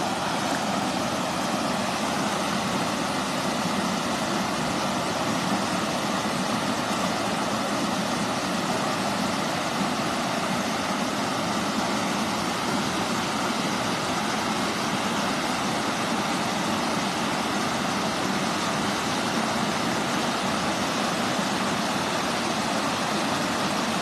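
Water pouring over a concrete weir into a shallow pool: a steady, unbroken rush.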